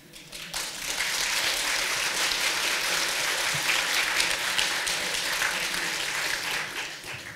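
Audience applauding, building up within the first second, holding steady, then dying away near the end.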